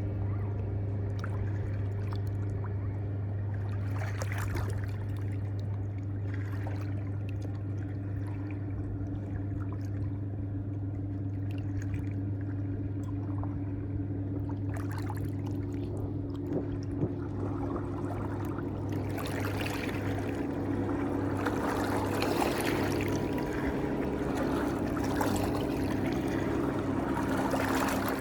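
Running water, growing louder and fuller about two-thirds of the way through, over a steady low hum.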